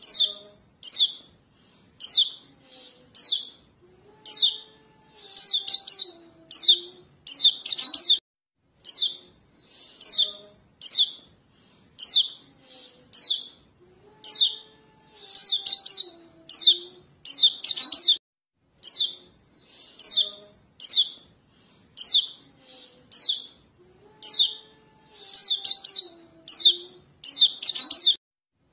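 Young white-eyes (kecial kuning) calling to their parents: short, sharp, high chirps, one or two a second with quicker clusters, played as a looped lure recording that repeats about every ten seconds. Fainter low gliding tones sound beneath the busier stretches.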